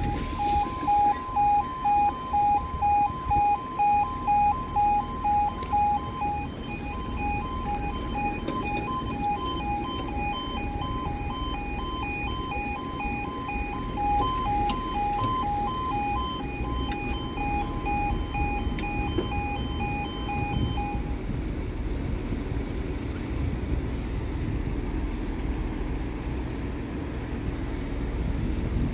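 Level crossing warning alarm sounding while the barriers lower: a pulsing electronic tone at about two beeps a second. It is louder for the first few seconds and stops about 21 seconds in.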